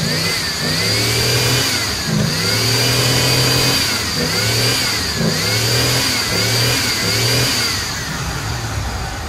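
An old Ford pickup's fuel-injected gas engine, freshly revived after sitting dead, being revved by hand at the throttle, its pitch rising and falling over and over about once a second. A steady high whine runs underneath.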